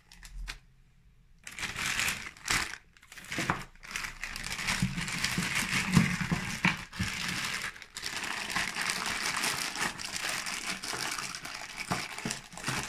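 Plastic wrapping film and small plastic bags crinkling as they are handled and packed into a cardboard box, with a few light knocks. It starts about a second and a half in.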